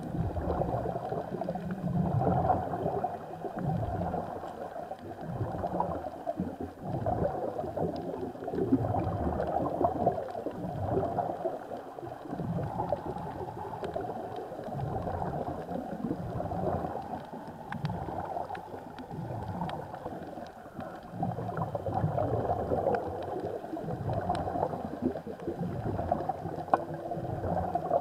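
Muffled underwater noise recorded by a camera in the sea: water moving around the camera, in uneven low surges with nothing high in it.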